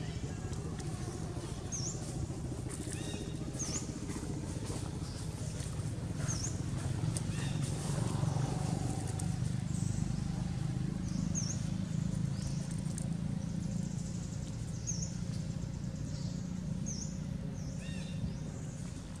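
A bird repeats a short, high chirp every second or two over a low, steady engine drone that grows louder in the middle and then eases off.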